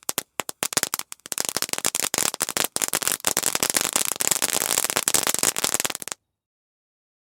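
Firework fountain crackling: scattered sharp pops at first, thickening after about a second into a dense, rapid crackle, then cutting off suddenly about six seconds in.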